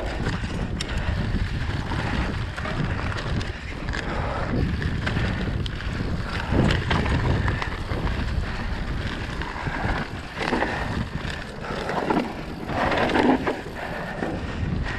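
Mountain bike running fast down a dirt singletrack: tyres rolling over dirt and leaves, with the bike knocking and rattling over bumps, and wind buffeting the microphone.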